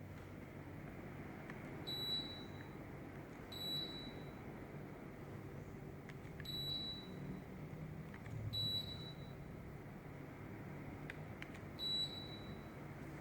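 Samsung mini split indoor unit's buzzer beeping five times, a short high beep each time it accepts a remote command, spaced one to three seconds apart. A steady low hum of the running unit underlies it.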